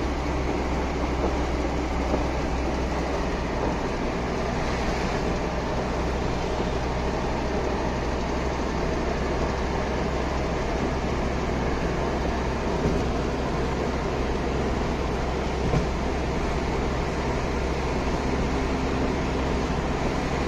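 Steady road and engine noise of a car driving at speed on a highway, heard inside the cabin: an even rumble with a constant low drone.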